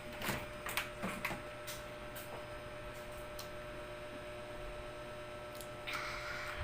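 Steady low electrical hum, with a few light clicks in the first two seconds and a brief rustle near the end.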